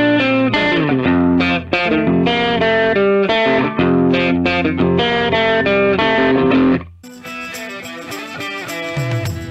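Instrumental electric-guitar music. It cuts off abruptly about seven seconds in, and quieter, different music follows.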